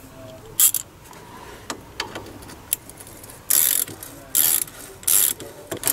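Ratchet socket wrench clicking in several short bursts as it winds in a brake caliper bolt.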